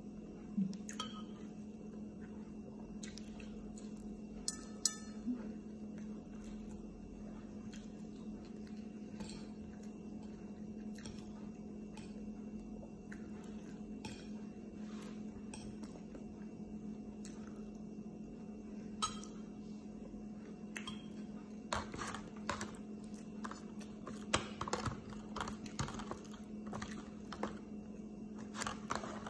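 Metal spoon and food clinking against a ceramic bowl and plate during a meal: scattered sharp clinks at first, coming thick and fast near the end, over a steady low hum.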